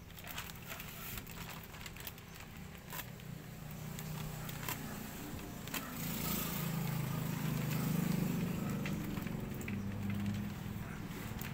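Plastic courier mailer bag crinkling and crackling as its sealed corner is picked at and pulled open by hand, with scattered sharp crackles. A low hum swells up in the middle and eases off near the end.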